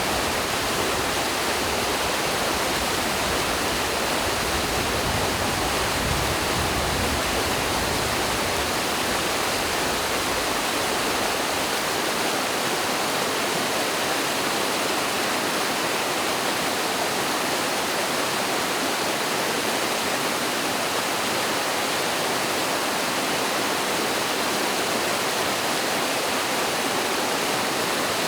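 Mountain stream cascading over a small waterfall: a steady, unbroken rush of falling water. A low rumble sits underneath for roughly the first ten seconds, then drops away.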